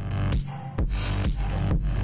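Electronic dance music with a steady, fast beat and heavy bass; the bass drops out briefly about half a second in.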